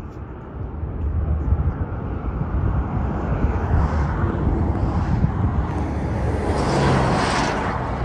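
Highway traffic running past, a steady low rumble that swells near the end as a vehicle passes close, its tyre hiss rising with an engine hum.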